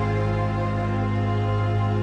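Slow, sad film-score music: a held chord over a steady low note.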